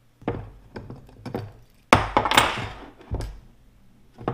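Metal bait-injection mold being handled and cracked open on a wooden workbench: a series of knocks and thunks, with a longer, louder clatter about two seconds in.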